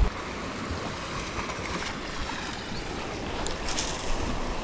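Wind rushing over the microphone with waves washing against the lava-rock shore below, a steady rumbling hiss, with a short sharper hiss a little after three and a half seconds in.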